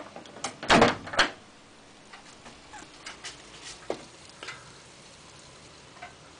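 Microwave oven's door-release button pressed with a click, then the latch lets go and the door swings open with a loud clatter about a second in. A few faint ticks follow.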